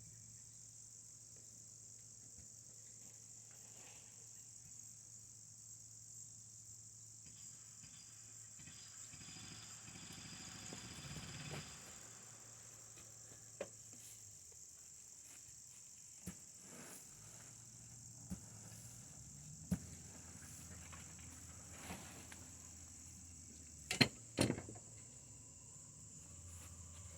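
Crickets chirping in a steady, faint, high-pitched chorus, with a few scattered sharp knocks. The two loudest knocks come close together near the end.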